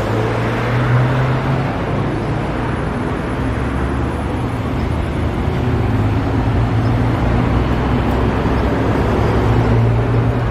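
Street traffic noise: a steady wash of road noise with a low engine hum, a city bus among the passing vehicles.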